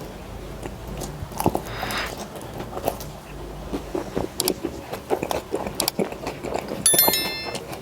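Close-up eating sounds: bites, chewing and small mouth clicks, irregular and repeated. There is a brief high chirp near the end.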